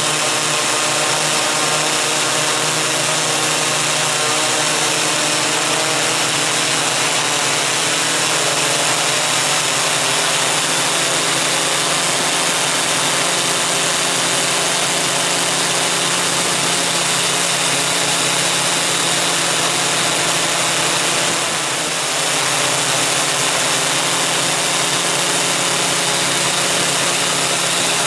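Electric motors and propellers of a MikroKopter coaxial X8 multicopter, heard from the camera mounted on it: a steady drone of several held pitches over a dense hiss.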